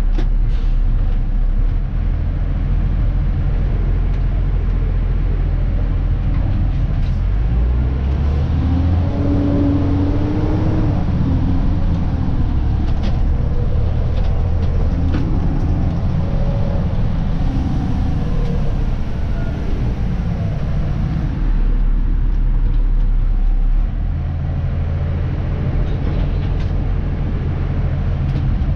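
Diesel engine of a Dennis Elite 2 garbage truck running steadily. Its low note changes about eight seconds in and settles back about twenty-one seconds in.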